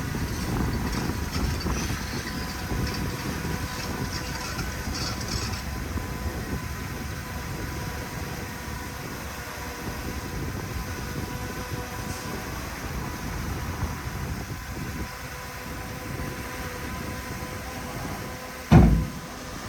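Heavy diesel earthmoving machinery running steadily with a low rumble, and one loud thud near the end.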